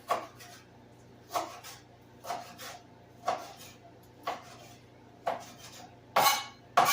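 Kitchen knife dicing vegetables on a cutting board, about one cut a second, each chop followed by a lighter tap. The last two or three cuts near the end are louder and longer.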